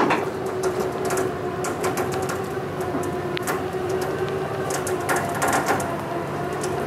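Electric trailer winch running with a steady hum as it hauls a fire truck up the trailer ramp on its cable, with irregular clicks and knocks from the load coming up.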